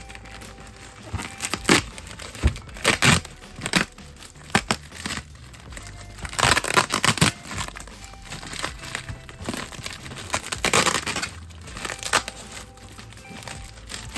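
Packaging being handled and torn open: irregular bursts of crinkling and tearing, loudest in clusters near the start, the middle and about three-quarters through.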